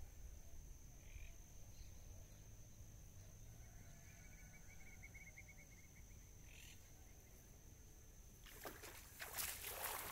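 Mostly quiet pond-side ambience with a steady high-pitched insect tone. Near the end comes a burst of water splashing as a hooked eel is hauled out of the pond on a hand line.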